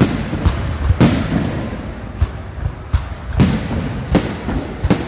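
Fireworks display: a string of sharp bursting shell bangs, irregularly spaced about half a second to a second apart, with rumbling echo filling the gaps between them.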